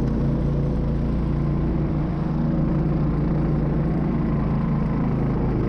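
Homemade snow vehicle's 20 hp engine running steadily through a Safari variator while driving through snow on a slope.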